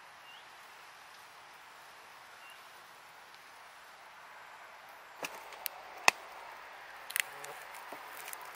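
Faint forest quiet, then from about five seconds in a run of sharp clicks and snaps, the loudest about a second later, as a hand grips and picks young oyster mushrooms off a mossy log.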